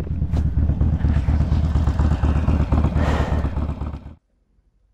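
Harley-Davidson Sportster V-twin with a big-bore kit idling close by with an even pulsing beat. It stops abruptly about four seconds in.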